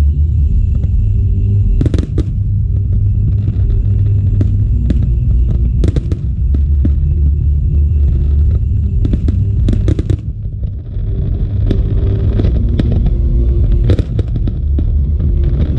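Aerial fireworks shells launching and bursting, sharp bangs every few seconds over a steady low rumble, with a cluster of bangs near the middle and denser crackling toward the end.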